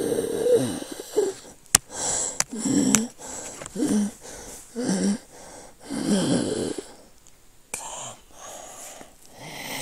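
Rasping, wheezing voice-like groans and moans in short bursts, one after another, with a few sharp clicks among them: demonic 'hell' sound effects.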